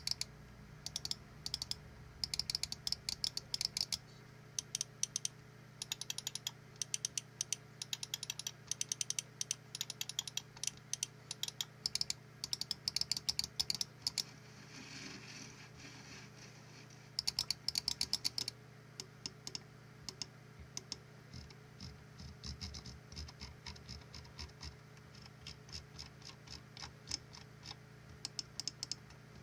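Logitech G305 wireless gaming mouse being clicked, its buttons giving sharp clicks in rapid bursts. From about two-thirds of the way in, the clicks thin out to lighter, sparser ticks of the scroll wheel being turned notch by notch.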